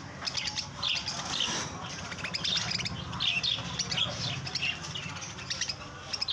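Budgerigars chattering: a continuous run of quick chirps and warbles.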